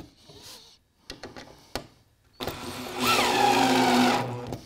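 Cordless drill-driver driving a screw down through a plywood baseboard into the timber beneath: a few light clicks, then about halfway in the motor runs up with a short rising whine and turns steadily for under two seconds before stopping near the end.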